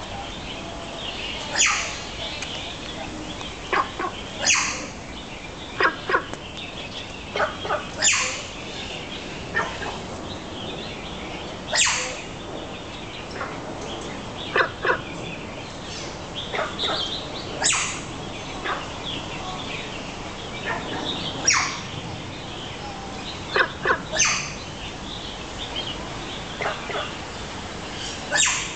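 Short, sharp animal calls repeated every one to three seconds, some in quick pairs, over a steady background hiss.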